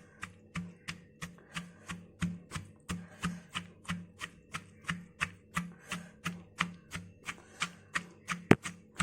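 Raw cucumber pieces being pounded coarsely with a pestle in a mortar: steady, rhythmic strikes at about three a second, with one sharper, louder knock near the end.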